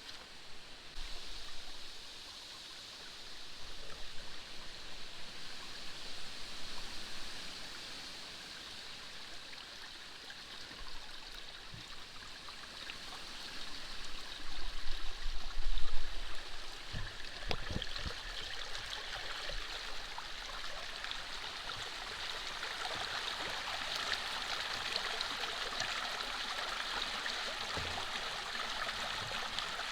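Water in a drainage canal rushing and splashing steadily, growing fuller in the second half. A few low thumps come around the middle.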